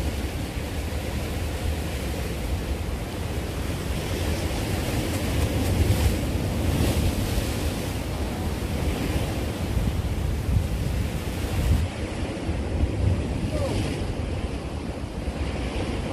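Sea waves surging and washing against the rocks of a breakwater, with wind buffeting the microphone.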